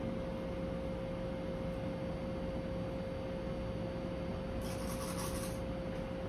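Indoor room tone: a steady single-pitch hum over a low, even rumble, with a brief high hiss about four and a half seconds in.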